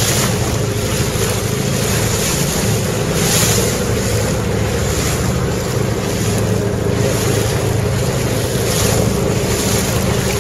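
Boat motor running steadily under way, with water rushing and splashing off the bow and wind on the microphone; the rush swells every second or two.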